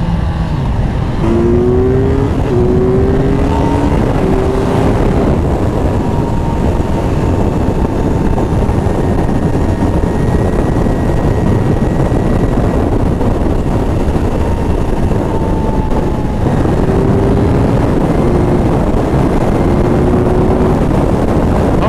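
Kawasaki Z900 inline-four engine accelerating hard, its note climbing in steps through several upshifts in the first few seconds, then holding a high steady pitch at motorway speed. About sixteen seconds in it drops and climbs again through more shifts. A heavy rush of wind and road noise runs under it throughout.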